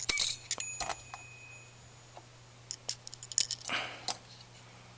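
Small metal disc spring washers clicking and clinking as they slide off a screwdriver shaft into the nut holes of a finned motorcycle-type cylinder head. One clink near the start rings on for about a second; more scattered clicks follow in the second half.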